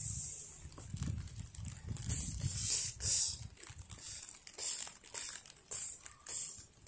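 Red panda foraging with its nose in dry leaves and grass, making short, irregular rustles.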